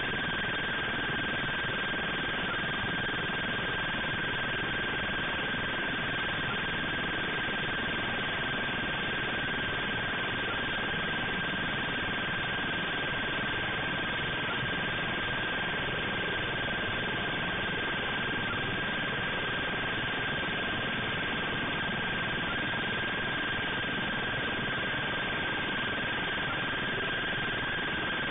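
Steady hiss with a continuous high whine held at one pitch, unchanging throughout.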